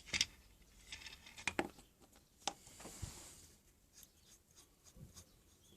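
Faint, scattered clicks and light knocks of small wooden knobs being handled and set down, with a soft rustle about three seconds in.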